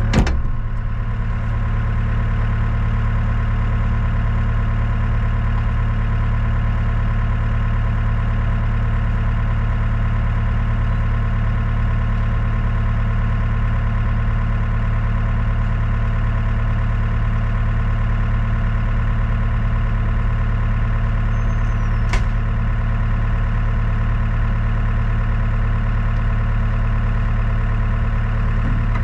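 Truck engine idling steadily, with a short click near the start and another about twenty-two seconds in.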